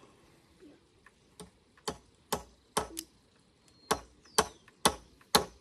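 Hammer blows on a wooden beam, as if nailing a pole in place: about nine sharp knocks, roughly half a second apart, in two runs with a pause of about a second between them. The blows grow louder as they go.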